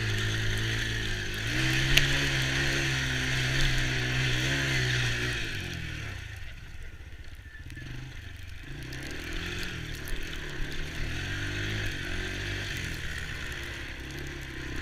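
Small ATV engine running as it is ridden, its pitch rising and falling with the throttle; it is louder for the first six seconds or so, then fainter. A sharp click about two seconds in.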